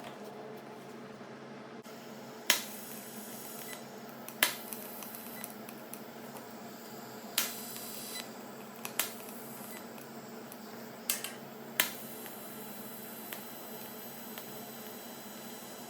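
A series of separate sharp clicks and knocks, six or seven spaced a second or more apart, over a steady low hum.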